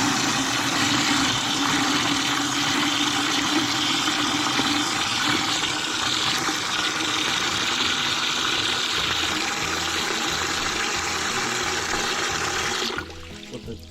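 Water rushing steadily out of a tankless water heater's flush hose into a bucket during the clean-water rinse after a vinegar descaling, then cutting off suddenly near the end as the flow is shut off.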